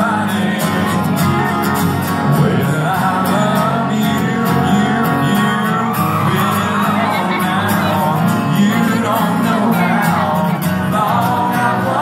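Live country band playing: strummed acoustic guitar and fiddle under a male lead vocal.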